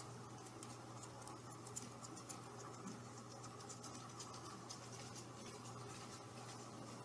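Faint light scratching and many small irregular ticks from a kitten's paws batting at a pompom wand toy and brushing the sofa fabric, over a low steady hum.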